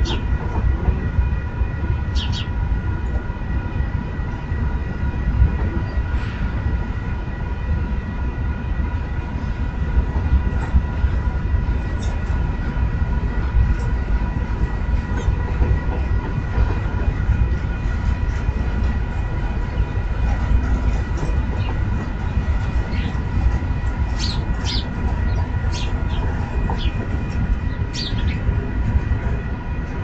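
Freight train cars of an intermodal rolling past: a steady low rumble with scattered short, sharp clicks and squeaks from the wheels. A faint steady whine runs underneath.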